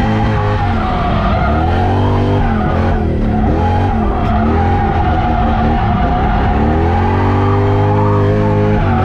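A drift car's V8 engine revving up and down again and again, several swings in pitch, while the tyres squeal steadily through a sustained drift.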